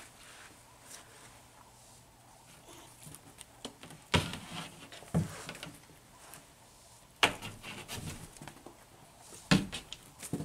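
Several short scuffles and thumps as a cat pounces and bats at the string of a wand toy against a wall and carpet.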